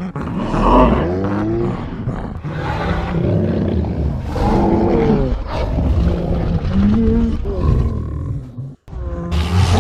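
Deep creature roars and growls from gorilla sound effects, several in a row, with a brief cut-out near the end.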